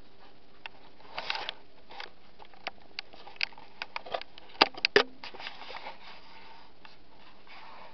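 Handling noise from a handheld camera phone being moved about: scattered taps, clicks and rustles, with two sharp knocks about halfway through.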